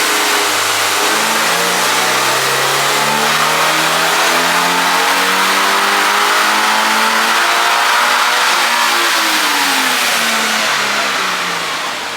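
2024 Toyota GR86's 2.4-litre FA24 flat-four at full throttle on a hub dyno, rising steadily in pitch for about eight seconds up toward redline. Then the throttle is lifted and the revs fall away.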